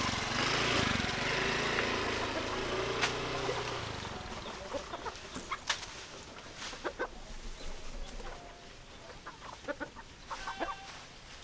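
Chickens clucking in short, scattered calls, with a cluster near the end. A loud low hum like a motor running fills the first four seconds and then fades away.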